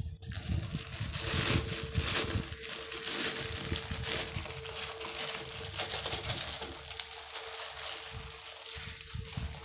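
Crinkly silver foil wrapping being crumpled and pulled open by hand, a continuous crackling that is loudest in the first few seconds and eases off later.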